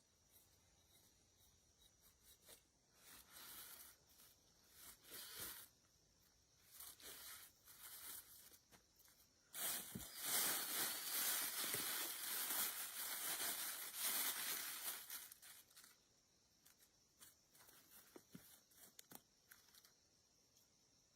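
Dry rustling and tearing handling noises, first in short bursts, then in a louder unbroken stretch of about six seconds in the middle, fading back to short rustles.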